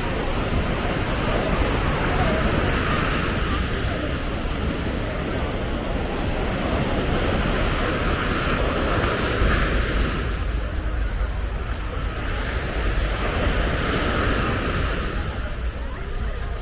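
Sea waves breaking on a beach, the surf swelling in roughly every six seconds over a steady wash. Wind rumbles on the microphone.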